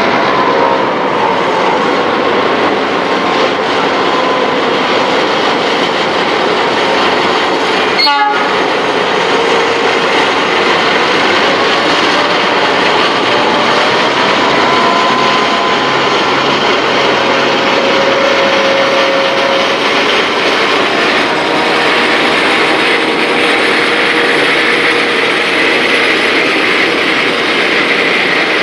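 Empty grain hopper wagons rolling past at close range: a steady rumble and clatter of steel wheels on the rails, with faint ringing tones from the wheels coming and going. There is one sharp clank about eight seconds in.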